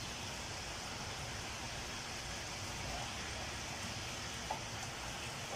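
Chicken frying in oil in a pan, a steady sizzle, with one light tap about four and a half seconds in.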